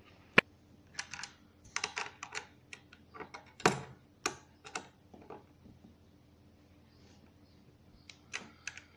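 Irregular small clicks and taps of PC parts and mounting hardware being handled and fitted, clustered in the first half and again near the end.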